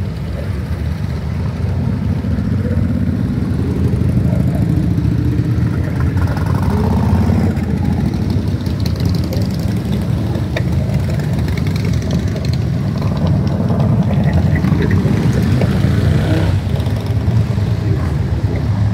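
Motorcycle engines running together in a steady low rumble, growing louder a few seconds in.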